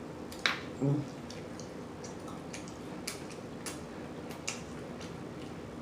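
Wet mouth smacking and chewing clicks from someone eating, close to the microphone, irregular at roughly two a second, with a short hum about a second in.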